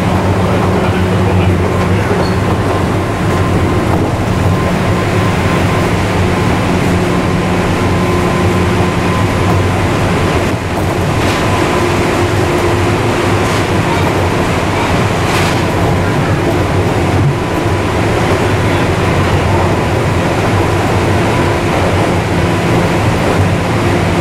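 JR East 201 series electric train running at speed, heard from inside the passenger car: a loud, steady running hum with a few steady tones and constant rail noise. A few sharp knocks come between about ten and fifteen seconds in, as the train runs into a tunnel.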